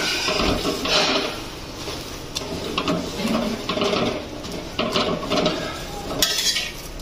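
Steel spatula pressing and scraping a paratha on a tawa as it roasts: repeated clicks and scrapes of metal on the griddle.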